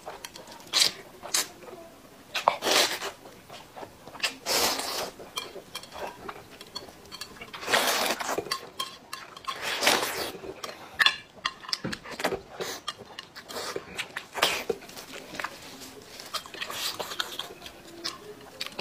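Loud, wet slurping of noodles and open-mouthed chewing and smacking, coming in irregular bursts, with faint clicks of chopsticks on a plate between them.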